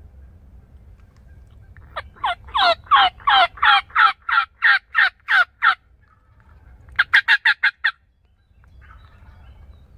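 Hen turkey yelps made on a mouth diaphragm call: about a dozen loud yelps at about three a second, each dropping in pitch, then after a short pause a quicker run of about seven short, sharp notes.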